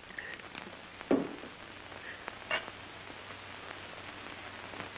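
Steady hiss of an old optical film soundtrack, with a few faint clicks and a soft knock about a second in.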